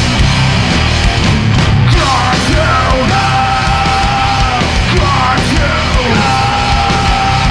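Heavy rock band playing live: distorted electric guitars, bass and drums. About two seconds in, a long high note slides in and is held over the band, sliding in again twice before the end.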